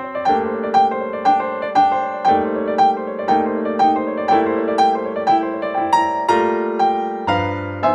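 Background piano music: a steady pattern of notes struck about twice a second over held chords.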